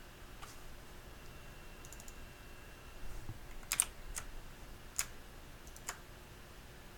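A handful of scattered single clicks from a computer keyboard, the sharpest just under four seconds in, over faint room hiss.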